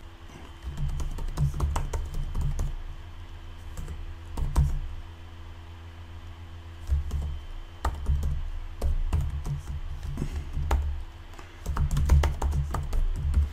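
Typing on a computer keyboard: quick key clicks with low thumps, in bursts with a short pause around the middle. A faint steady hum runs underneath.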